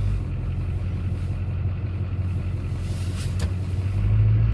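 Pickup truck driving in four-wheel drive on a snowy road: a steady low engine drone with road noise, and one brief click about three and a half seconds in.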